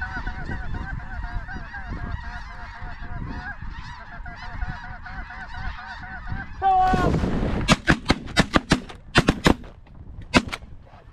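Snow geese calling, many high honks over one another, for about six seconds. Then a brief loud rush of noise, and a volley of about a dozen shotgun blasts in quick succession from several hunters firing together.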